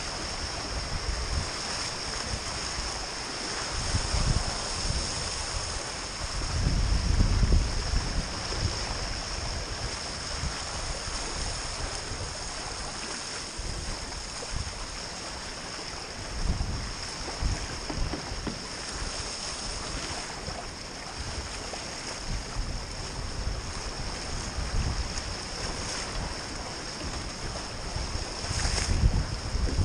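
Wind rumbling on the microphone in gusts, over the steady rush and splash of water past the hulls of a small sailing catamaran under way. The gusts swell about four and seven seconds in and again near the end.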